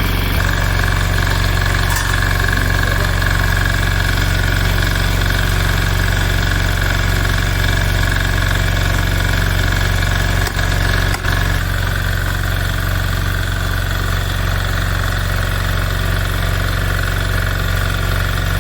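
An engine running steadily with an even low hum, dipping briefly twice about ten seconds in.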